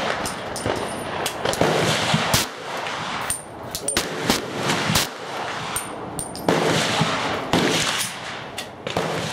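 Glock 37 pistol in .45 GAP firing a string of shots at irregular intervals. Each sharp report trails off in reverberation under the covered firing line.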